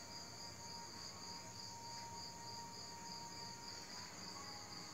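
Faint, steady high-pitched chirping of a cricket, pulsing evenly.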